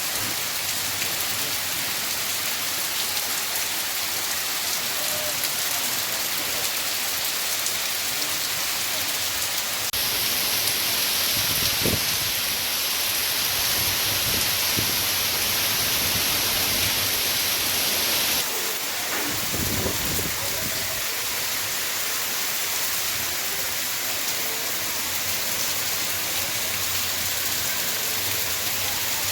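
Heavy rain pouring steadily. For several seconds in the middle the hiss is louder and brighter, then it drops back abruptly.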